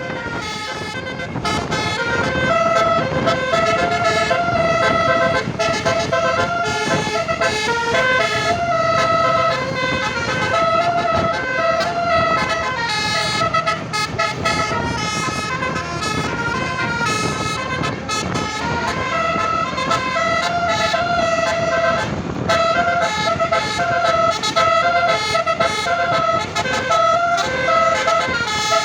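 Indonesian bus 'basuri' telolet horn, a set of 12-note roof-mounted air trumpets, playing a tune in quick stepped notes that keeps on without a break.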